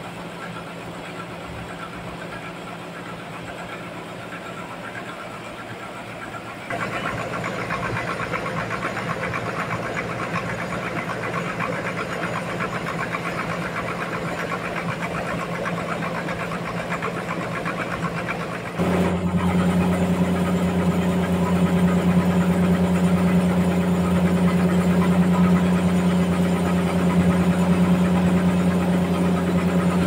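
Large band sawmill running with a steady machine hum. It grows louder and busier about a quarter of the way in, then jumps abruptly louder, with a strong low drone, at about two thirds.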